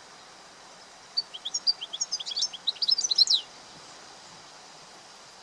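European goldfinch singing: one fast twittering phrase of high chirps and trills, starting about a second in and lasting about two seconds, over a faint steady hiss.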